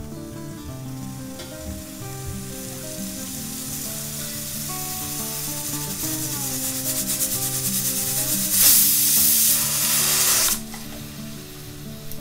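Pressure cooker on a gas stove: a steam hiss builds, then about eight and a half seconds in the weight valve blows its whistle, a loud rush of steam lasting about two seconds that cuts off suddenly and spits water over the lid. The whistle is the sign that the cooker has reached full pressure while cooking rice.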